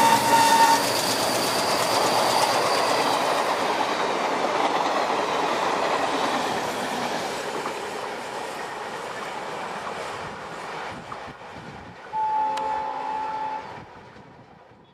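An ALCo diesel locomotive's horn cuts off within the first second, then the locomotive and its coaches roll past close by, wheels clattering over the rail joints, the noise slowly fading away. Near the end a train horn sounds once for about a second and a half, and the sound fades out.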